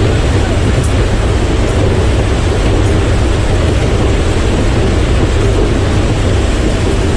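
Steady, loud roar of a C-17 Globemaster's four turbofan jet engines running at high power, with a deep rumble and no change in pitch.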